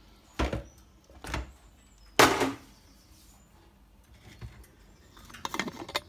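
A few separate clunks and knocks from a plastic jug and a stainless-steel food flask being handled, the loudest a little over two seconds in.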